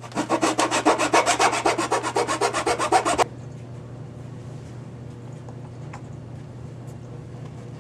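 Hand file rasping quickly back and forth on a plastic center console panel, enlarging a rectangular cutout for a switch, about ten strokes a second. The filing stops abruptly about three seconds in, leaving only a low steady hum.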